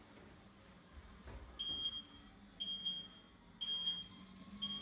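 Gym wall timer's countdown beeps: three short high-pitched beeps a second apart, then a longer beep begins near the end, the signal that the workout clock has started.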